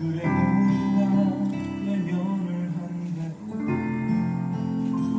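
Music from a stage-musical song, with strummed guitar chords and held notes, between sung lines.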